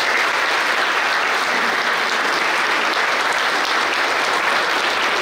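Audience applause: a crowd of adults and children clapping steadily.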